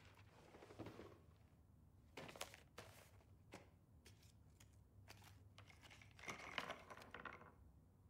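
Faint handling sounds as small keepsakes are set one by one on a piano's wooden ledge: a few light taps and clicks between about two and three and a half seconds in, and a soft rustle near the end.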